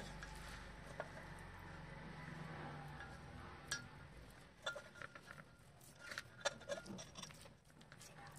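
Hands squeezing and mixing a sticky boondi laddu mixture in a metal bowl, with scattered light metallic clinks against the bowl that come more often in the second half. A low steady hum sits underneath in the first half.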